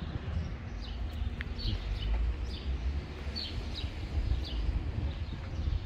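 Small birds chirping with short, high, falling notes repeated about once or twice a second, over a steady low rumble of outdoor background noise.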